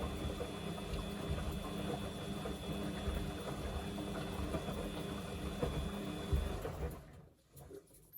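Samsung washing machine turning its drum during a 40 °C darks wash: a steady motor whine over churning and low knocks from the load. It stops about seven seconds in.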